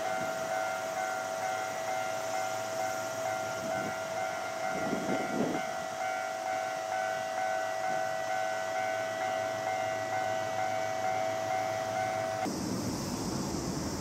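Light-rail trams at a station: a steady high hum held on two close pitches, with low rumbling swells about five seconds in.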